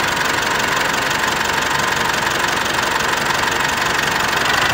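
Mitsubishi Pajero engine idling steadily during its idle relearn after a tune-up.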